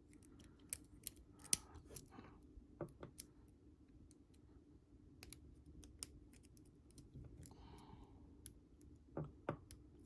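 Lock picks working the pins of a Commando padlock: small, irregular metallic clicks and ticks from the pick and tension tool, a few of them sharper. A faint steady hum runs underneath.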